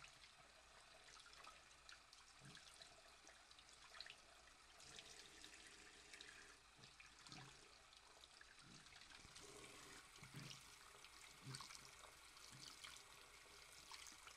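Faint sound of a bathroom tap running into a sink while a wet foam makeup sponge is squeezed and rinsed under the stream, with occasional soft splashes.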